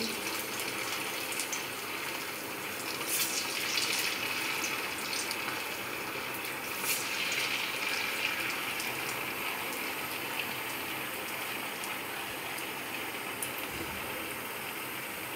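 Sabudana vadas deep-frying in hot oil in a small pan: a steady sizzle and bubbling, with a few sharper crackles in the first half.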